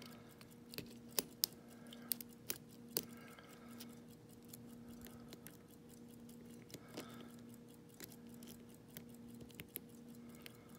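Lock pick and tension wrench working the pins of a pin-tumbler lock cylinder, making irregular small metallic clicks that come thickest in the first three seconds. A faint steady hum runs underneath.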